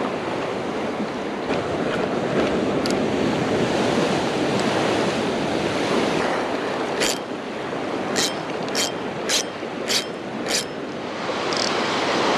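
Ocean surf washing steadily, with wind on the microphone. In the later part, about six short, sharp clicks come roughly half a second apart.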